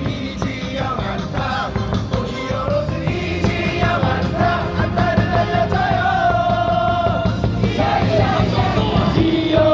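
Amplified cheer song playing over stadium loudspeakers, with a crowd of fans singing and shouting along.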